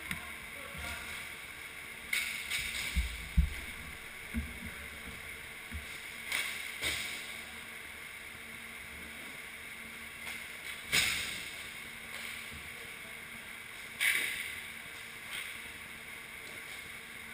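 Scattered sharp knocks and clacks of sticks and a puck during inline hockey play, each echoing briefly in a large indoor rink, over a steady background noise.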